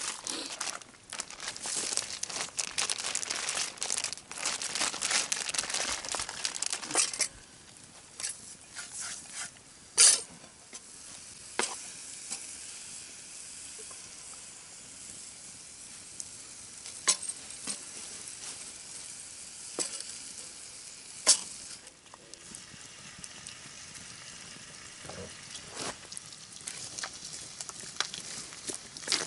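Bacon sizzling in a frying pan over a wood campfire. There is dense crackling for the first several seconds, then a steadier sizzle broken by occasional sharp pops.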